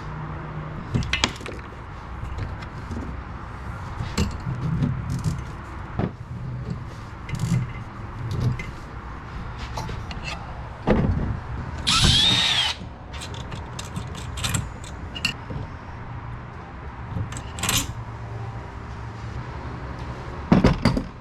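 Tools and metal parts clicking and knocking during hand assembly. About twelve seconds in, a power drill runs for a second, its whine rising and then falling, likely drilling through the metal mounting post.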